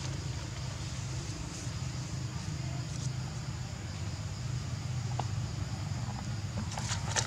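Steady outdoor background: a constant low rumble under a thin high hiss, with a few light clicks or rustles near the end.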